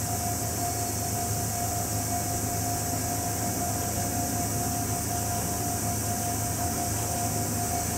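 Distant railway level-crossing bell ringing steadily, a pulsed tone a few times a second that signals an approaching train, over a steady high hiss.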